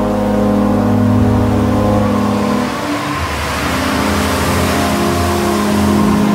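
Sustained music chords, joined about three seconds in by a swelling rush of blizzard wind that carries on over the music.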